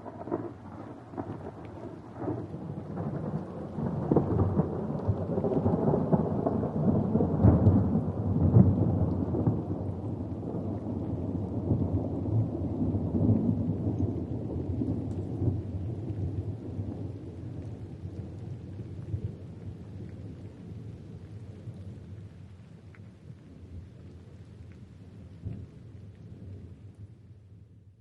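A long roll of thunder over falling rain: the rumble builds over the first few seconds, peaks with its loudest cracks about eight seconds in, then slowly rolls away and fades out.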